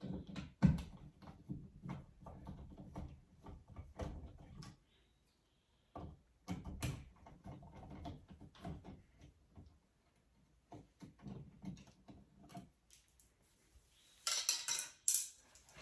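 Light switch cover plate being worked off the wall: scattered small clicks and knocks of plastic and screw handling, with a louder scrape near the end.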